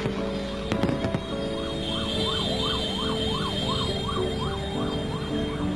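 A couple of firework bangs about a second in. Then a wailing siren sweeps up and down about twice a second for a few seconds, over steady background music.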